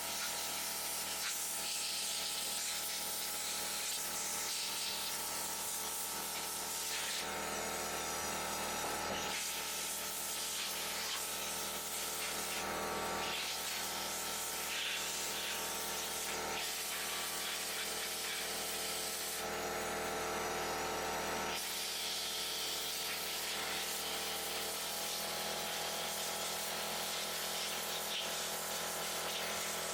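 Compressed-air blow gun hissing as it blows sawdust and bar oil off a chainsaw, the hiss growing and easing several times as the nozzle is worked over the saw. A steady hum runs underneath.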